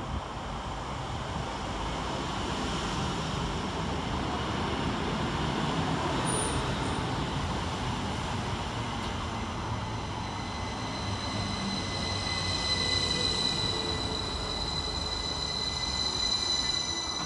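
Northern Class 333 electric multiple unit, a Siemens Desiro, arriving and running past at close range as it slows for the platform. About halfway through, a steady high brake squeal sets in and a lower motor whine falls in pitch as the train brakes.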